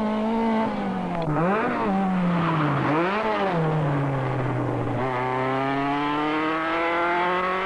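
Racing sports car engine heard on board at speed. Its note dips and recovers sharply twice, sags low, then climbs steadily as the car accelerates.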